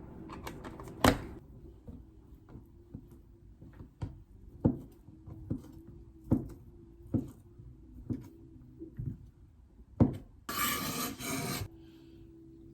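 Wooden colored pencils clicking and tapping as they are handled and set down on a table, about a dozen sharp irregular clicks. About ten and a half seconds in there is a brief scratchy rasp.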